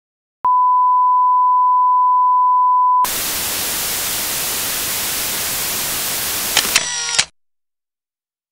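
A steady 1 kHz test-tone beep for about two and a half seconds, then television static hiss. A few sharp clicks come near the end, and then it cuts off suddenly.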